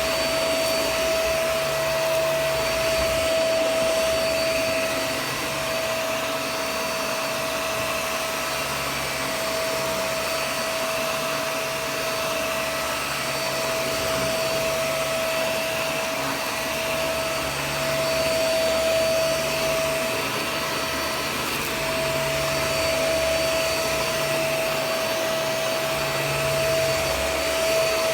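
Shark Vac-or-Steam's vacuum motor running steadily with a high, even whine as it vacuums a rug, the level swelling and dipping slightly as it moves.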